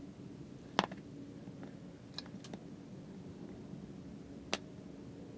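A few light clicks and taps from handling a plastic glue bottle and a small model part on a cutting mat, about four in all, the loudest about a second in, over a faint steady hum.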